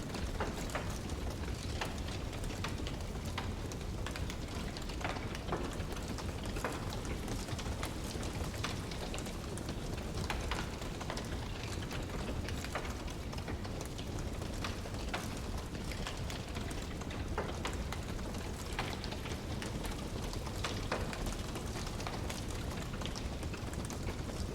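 Wood fire crackling, with frequent irregular sharp pops and snaps over a steady low rushing hiss.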